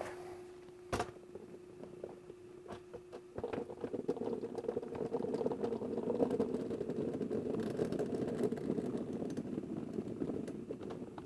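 Hundreds of small Nerf Rival balls poured from a plastic tub down a metal chute into a large hopper magazine: a dense rattling cascade that starts about three seconds in and runs for about seven seconds. Before it there is one sharp click.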